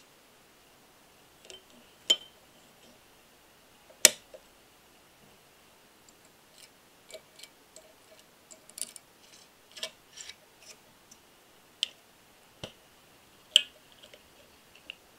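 Small metal parts of an all-metal radial engine model kit clicking and clinking as they are handled and fitted together, with metal tweezers tapping the parts. Scattered sharp clicks, the loudest about two seconds in, about four seconds in and near the end.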